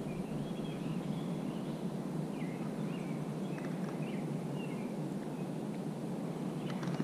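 Steady low outdoor rumble with faint songbird chirps scattered through the first half, and a few soft clicks near the end.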